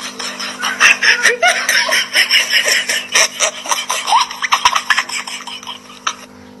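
People laughing in short, rapid bursts, fading out near the end.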